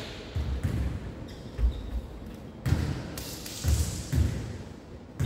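A jokgu ball thumping about six times in a few seconds as it is kicked and bounces on a wooden gym court floor during a rally.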